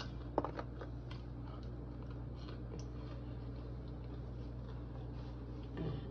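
Someone eating: faint, irregular little clicks and mouth noises of chewing, over a steady low hum.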